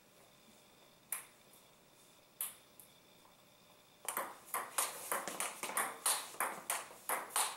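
Table tennis ball clicking off paddles and the table: two single clicks in the first half, then from about four seconds in a fast rally of sharp clicks, about four a second.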